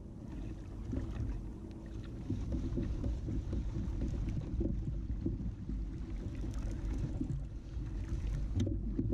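Steady low rumble of wind and water against the kayak, with scattered light clicks and knocks from the reel and rod as the angler cranks in a hooked fish.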